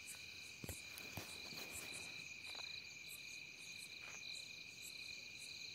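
Faint chorus of crickets chirring steadily: several high-pitched trills at once, one of them pulsing rapidly.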